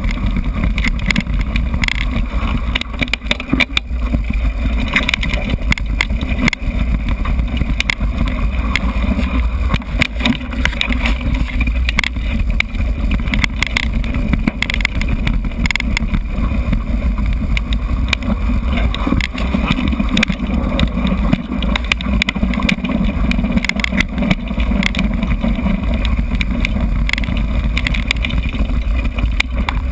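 Mountain bike ridden fast over a dirt forest trail, picked up by a GoPro Hero camera riding along: a steady low rumble of wind and tyre noise, with frequent rattles and knocks from the bike over bumps.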